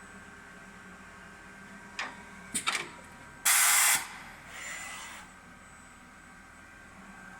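Automatic soldering machine at work: a few sharp mechanical clicks, then a loud half-second hiss like a blast of compressed air about three and a half seconds in, followed by a fainter, shorter hiss, over a steady low machine hum.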